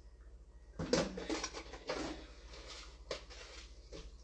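Kitchen cookware and utensils clattering: a sharp knock about a second in, some rattling after it, and another knock around three seconds in.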